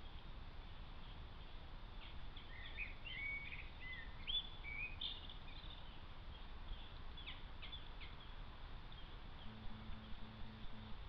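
A small songbird singing in short bursts of quick chirps and brief whistled glides, over a steady background hiss. Near the end, a short run of about five low, even pulses.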